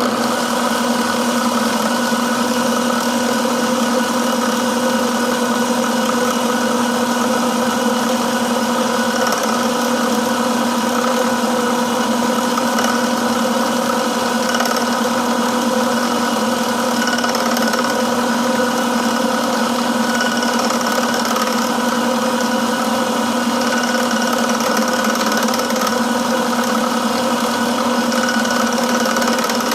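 Milling machine switched on and running steadily: a loud, even motor hum with a steady whine of several tones. It starts abruptly.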